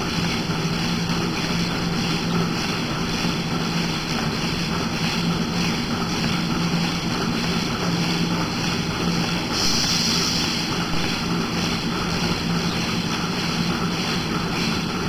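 Steady mechanical drone of milking-stall machinery with a low hum underneath, and a short hiss about ten seconds in.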